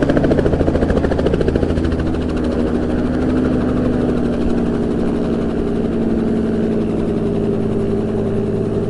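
Helicopter running, with a fast, even rotor chop for the first two seconds that then gives way to a steadier engine hum.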